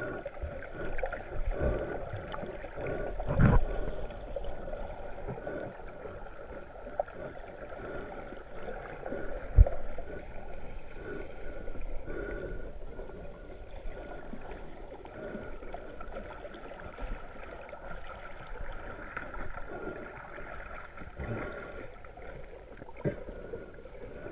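Muffled churning and sloshing of shallow seawater surging over rocks, heard from under the water, with a louder surge about three seconds in and a sharp knock about ten seconds in.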